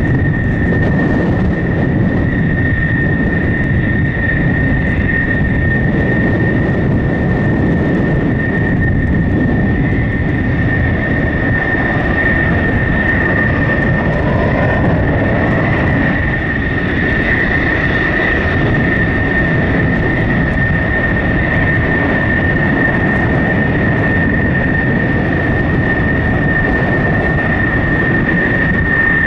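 Jet engine of a two-seat USAF F-16 at taxi power as the fighter rolls along the taxiway: a loud, steady rumble with a constant high whine on top.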